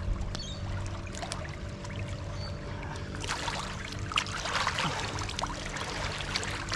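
Water pouring and splashing as a cleaned mud crab is rinsed out, starting about three seconds in and growing stronger, over a steady low hum.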